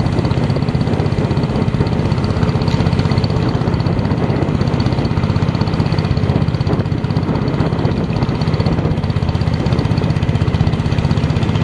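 Small boat engine running steadily with a fast, even beat, heard from on board the narrow motorboat.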